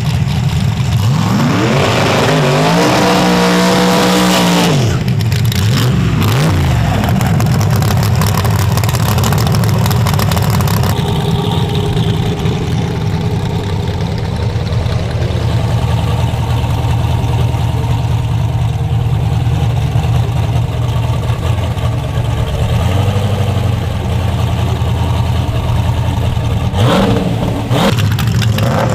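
Drag-race truck engines: one revs up over about two seconds, holds high, then drops back, followed by a loud, steady deep idle rumble. Quick revs come near the end.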